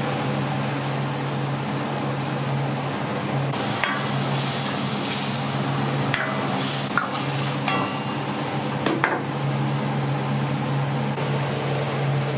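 Tomato-ketchup sauce sizzling and bubbling in a hot wok over a gas flame, with a ladle stirring and now and then knocking and scraping against the wok. A steady low hum runs underneath.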